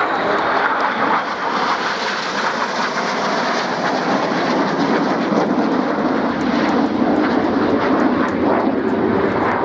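Jet aircraft flying past in close formation: the Red Arrows' BAE Hawk T1 trainers, their Adour turbofans making a loud, steady jet noise.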